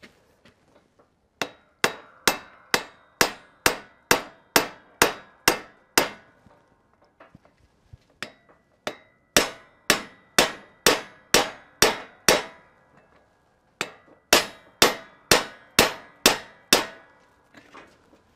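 A hammer striking the steel handle of a bearing race driver again and again, each blow ringing like metal, in three runs of about two blows a second with short pauses between. The blows tap the outer bearing race into the wheel hub to get it started.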